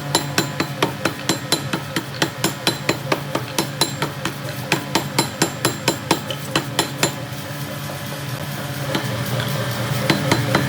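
Pneumatic forging hammer striking a hard metal die plate in a rapid, even run of blows, about four or five a second, over the steady hum of the machine. The blows stop about seven seconds in, leaving the machine humming, and a couple of single strikes land near the end.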